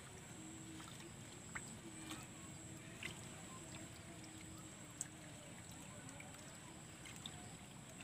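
Faint outdoor background at the water's edge: a low steady rumble with a thin, steady high whine over it, and a few soft ticks.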